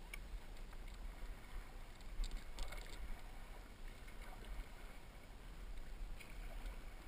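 Quiet paddling on calm water: stand-up paddle blades dipping and water lapping around the boards, over a low, uneven rumble. A few short clicks come about two to three seconds in.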